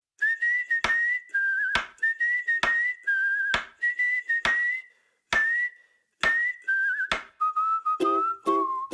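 Whistled tune from a song intro, short melodic phrases over a sharp percussive hit about once a second; plucked ukulele chords come in near the end.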